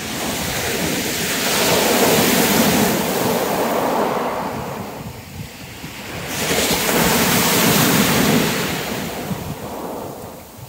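Surf breaking on a shingle beach in a heavy swell: two waves swell up and die away about six seconds apart, the second breaking suddenly about six seconds in. Wind buffets the microphone with a low rumble.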